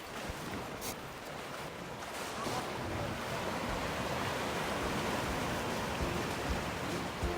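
Sea waves surging and washing against a rocky shoreline, a steady rush of surf that swells a little about two and a half seconds in.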